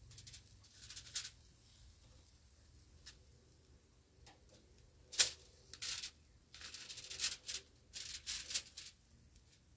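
Aluminium foil and a foil pan being handled on a grill grate: short crinkling rustles, mostly in the second half, with a sharp click about five seconds in.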